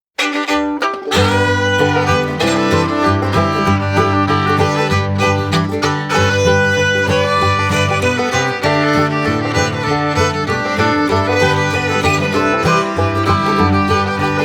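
Instrumental ringtone tune with a romantic feel: a melody over a steady bass line, the bass coming in about a second in.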